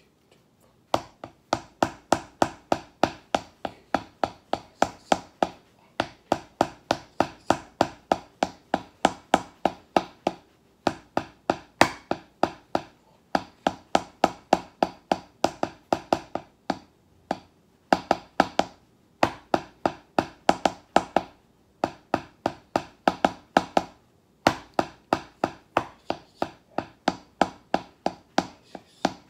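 Wooden drumsticks playing a snare drum exercise on a rubber practice pad: a rapid stream of sharp taps starting about a second in, in phrases broken by short pauses, with some strokes louder than others.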